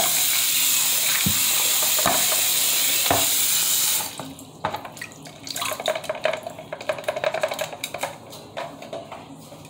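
Water running from a tap into a sink, shut off about four seconds in. Then a clear plastic hamster ball is handled and rinsed: scattered knocks, clicks and rubbing of wet plastic.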